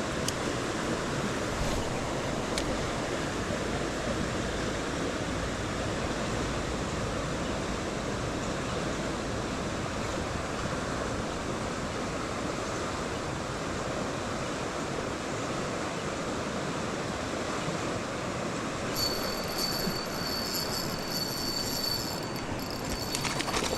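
River water rushing over a shallow run, a steady, even noise. A faint high whine with light ticking comes in near the end.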